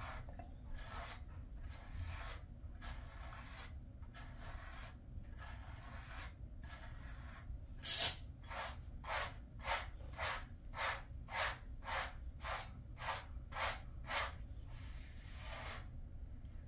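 A pet grooming brush rasping through a Jindo dog's tail fur in repeated strokes, slower at first, then a quicker even run of about two strokes a second from about halfway through, the first stroke of that run the loudest.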